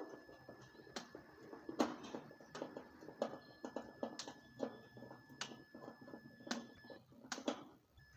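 Irregular sharp clicks and knocks, about one or two a second, from hand work taking apart an air-conditioner unit to remove its old compressor, over a faint steady high whine.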